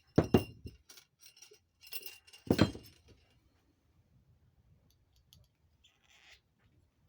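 Small metal parts and tools handled on a workbench: two sharp knocks with a short metallic clink, about two seconds apart, with lighter clicks between them and a faint rustle near the end.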